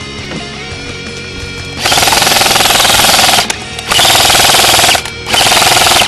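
Three long, loud bursts of full-auto fire from an airsoft gun, a rapid rattle of shots lasting one to two seconds each, starting about two seconds in. Background music plays underneath.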